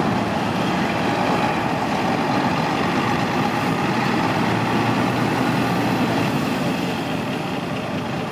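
Diesel engine of heavy earthmoving machinery running steadily, dropping slightly in loudness near the end.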